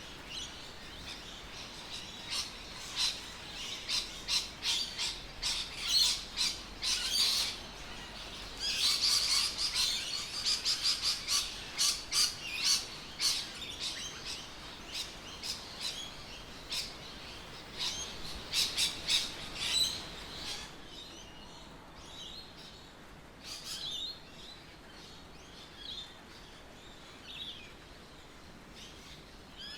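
Birds chirping and calling in quick, short high notes. The calling is busiest in the first two-thirds and thins out after about twenty seconds.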